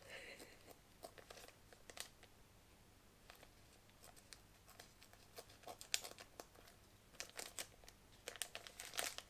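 Faint, scattered clicks, scrapes and rustles of cardboard and plastic packaging being cut open and handled, with a louder click near the end.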